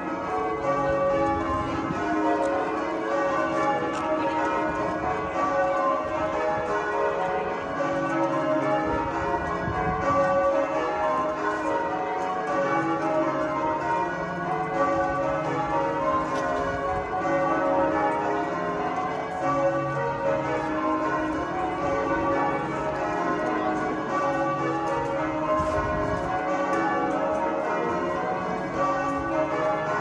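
Canterbury Cathedral's church bells being rung in changes: a continuous, even stream of overlapping bell strikes, each tone ringing on under the next.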